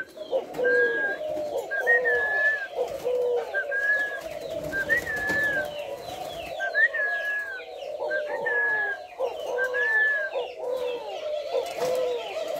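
Male white spotted doves cooing over and over, calls repeating about once a second, with other caged doves cooing at the same time.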